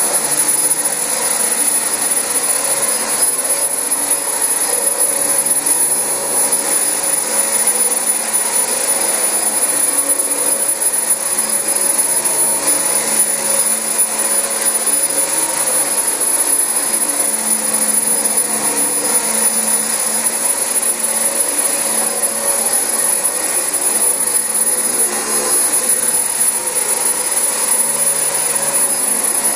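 Dyson DC25 upright ball vacuum cleaner running steadily on carpet, a constant motor whine with a high tone over the noise of the suction.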